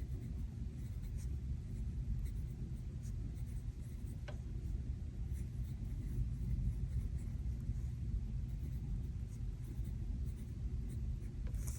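Pen writing and scratching lightly on planner paper, with a few small ticks, over a steady low rumble.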